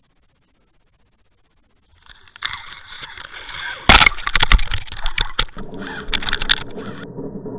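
Knocks, scrapes and rushing water picked up by a Water Wolf underwater camera as it is drawn through pond weed, starting about two seconds in. The loudest knocks come about four seconds in; near the end the sound turns duller and lower.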